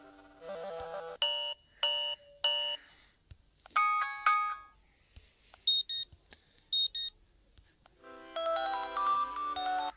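A run of short mobile phone ringtones and alert tones played one after another with brief gaps: three short chimes, a quick melodic jingle, two pairs of high beeps, then a repeating ringtone melody starting about eight seconds in.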